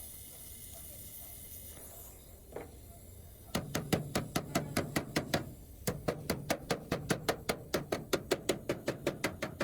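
Rapid, even tapping, about five sharp strikes a second. It starts about three and a half seconds in, breaks off briefly, then carries on.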